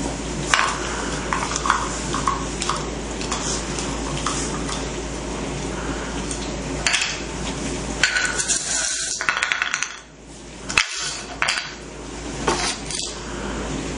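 Scattered clinks and clatters over a steady background noise.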